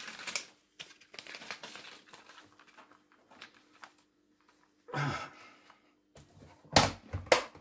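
Plastic vacuum-sealer bag crinkling as it is handled and smoothed flat. Near the end, the lid of a Caso VC100 vacuum sealer is pressed shut with a few loud clacks in quick succession.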